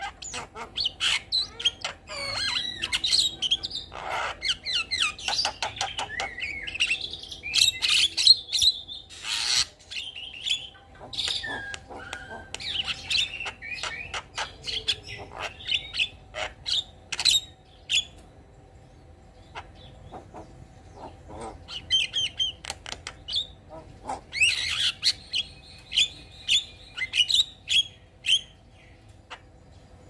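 Javan myna singing a rapid, varied song of chattering notes, whistles and sharp clicks. It pauses for a few seconds past the middle, then starts again with a run of evenly repeated notes.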